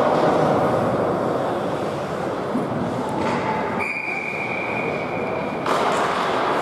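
Ice hockey rink game noise: a continuous noisy din of play, with a steady high whistle-like tone held for about two seconds near the middle. The noise grows brighter just after the tone stops.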